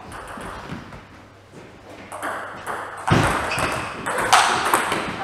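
Table tennis rally: a celluloid-type ball clicking sharply off paddles and the table in quick succession, starting about two seconds in, with a heavier low thud about three seconds in.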